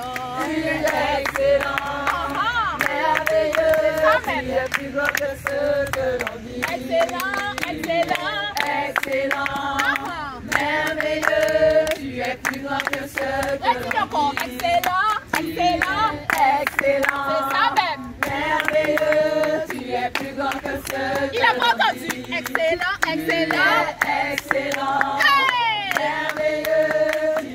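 A small group of people singing a song together and clapping their hands in time.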